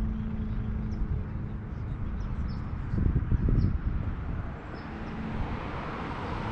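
Outdoor street ambience: a low traffic rumble with a steady engine hum through the first half, and faint, scattered bird chirps. The traffic noise swells near the end as a vehicle passes.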